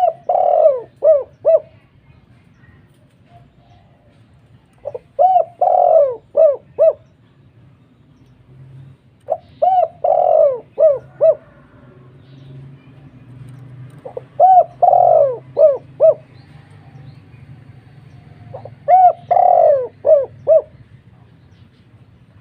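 Cage dove cooing: five phrases about 4.5 s apart, each an opening note, a longer rolling coo and a run of about three short 'kuk' notes.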